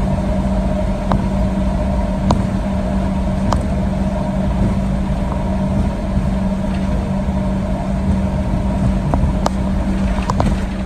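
Cabin noise of a Boeing 737-800 taxiing, its CFM56-7B engines at idle: a steady hum with a constant low drone, broken by a few brief knocks, more of them near the end.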